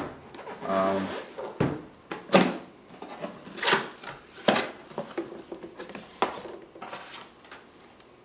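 Camera box and its packing being handled and opened: a string of rustles, scrapes and light knocks, with a brief hum from the person about a second in.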